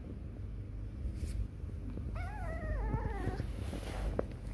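Kitten giving one long, wavering mew about halfway in, its pitch sagging toward the end.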